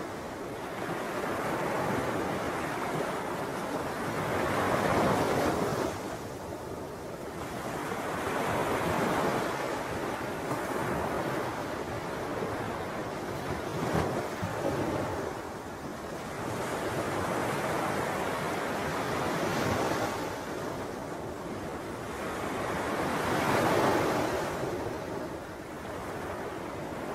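Rushing wind and lapping water at the lagoon's edge, swelling and easing every four or five seconds.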